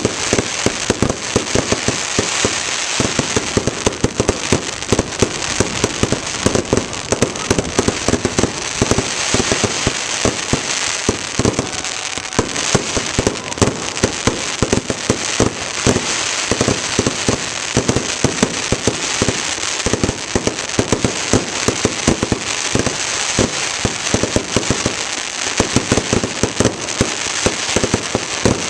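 Fireworks crackling: a dense, continuous run of rapid sharp pops and cracks.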